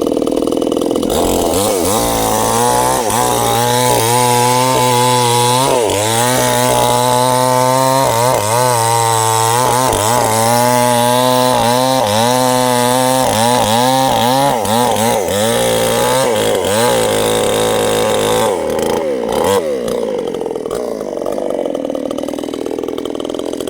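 Two-stroke chainsaw cutting sengon wood, its engine pitch repeatedly dipping and recovering as the chain bites through the log. Near the end it eases off to a lower, steadier run.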